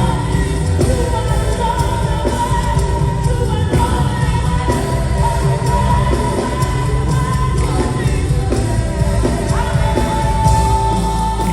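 Live gospel worship music: a band with drums and bass playing under a singer's long, held notes.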